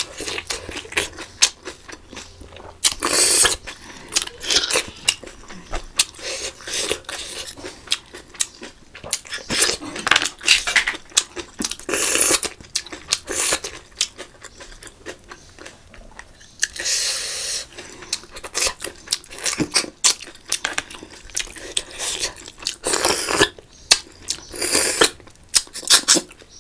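Close-miked eating: steady chewing and crunching with many wet smacking clicks, broken by several longer hissing slurps.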